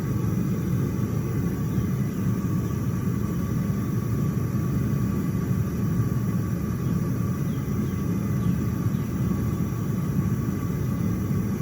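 Homemade propane venturi burner firing steadily into a small furnace, a low, even rush with no change in level, while it heats a crucible of copper to melting.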